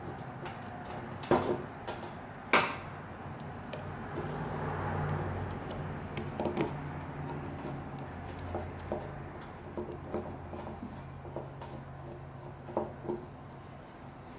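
Sharp clicks and knocks of small metal parts and hand tools being handled while a carburetor's wiring and fittings are worked on, with two loud knocks in the first three seconds and lighter taps after. A low steady hum swells about four seconds in and fades near the end.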